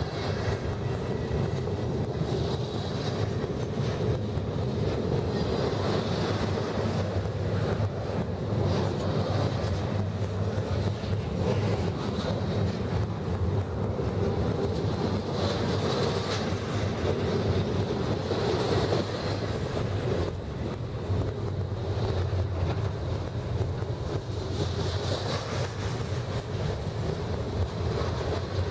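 Double-stack container well cars of a BNSF intermodal freight train rolling past at close range: a steady rumble and rattle of steel wheels on rail. A higher ringing comes and goes every few seconds.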